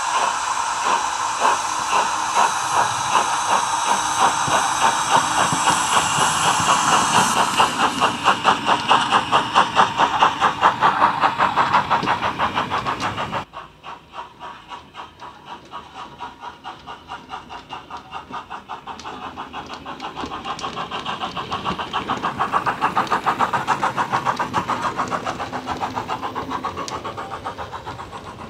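DCC sound decoder in a Bachmann Jubilee model steam locomotive playing steam engine sound through a small bass-enhanced speaker: the engine pulls away with steam hiss over the first several seconds and exhaust chuffs that quicken. The sound drops sharply about halfway through, then the chuffs come back fainter and grow louder as the train draws near.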